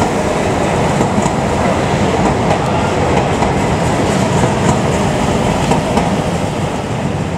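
Tyne & Wear Metrocar train running past close by: a loud, steady rumble of its wheels on the rails.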